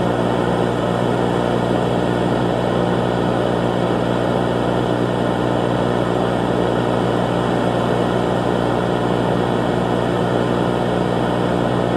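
A loud, steady drone like engine or aircraft noise, with a low hum under it, unchanging throughout.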